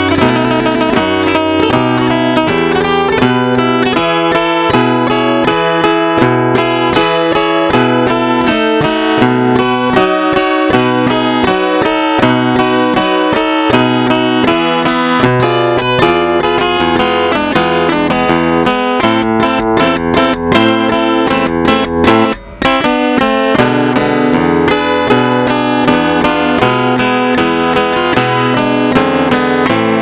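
Guitar played by a solenoid-driven robotic picking and fretting mechanism: a plucked tune with a repeating bass note under chords and melody. It breaks off for a moment about three-quarters of the way through.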